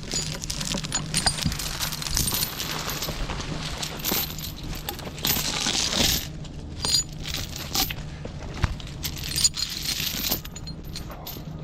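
A metal chain being handled and hooked, rattling and clinking in quick irregular jangles, over a steady low hum.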